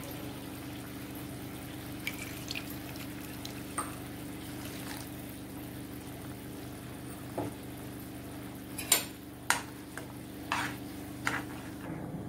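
Moong dal gravy bubbling in a wok over a steady low hum, with a steel ladle knocking and scraping against the pan about ten times, the loudest knocks about nine seconds in.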